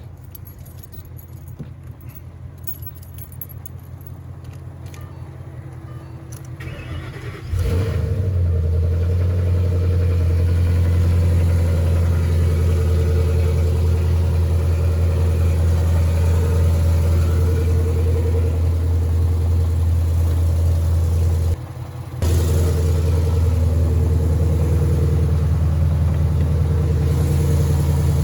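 2013 Ford Mustang GT's 5.0 L Coyote V8 running steadily at idle, with a knock that the owner takes for rod knock. It is quieter at first, becomes much louder about a quarter of the way in, and drops out briefly about three-quarters through.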